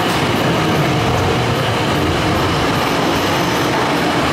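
Steady, loud din of arcade machines.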